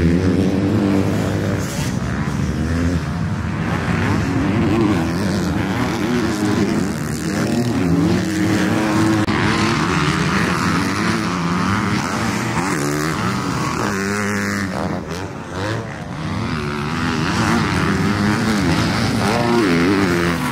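Yamaha motocross bike's engine revving hard around a dirt track, its pitch climbing and falling over and over with throttle and gear changes, easing off briefly about fifteen seconds in.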